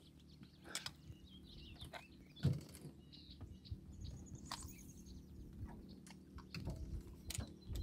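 Quiet outdoor ambience on a small aluminium fishing boat: a few faint knocks and clicks, the loudest about two and a half seconds in, over a faint steady low hum, with a few faint high chirps near the middle.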